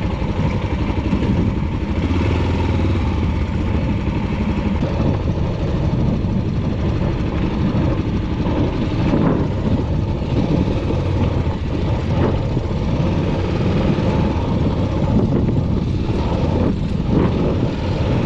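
Motorcycle running while being ridden, its engine noise steady throughout, with a few short knocks over it.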